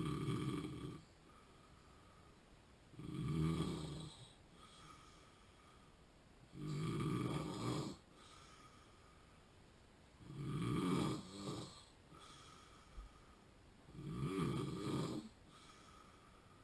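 A sleeping man with sleep apnea snoring in a regular rhythm: five snores, one about every three and a half seconds, each lasting about a second.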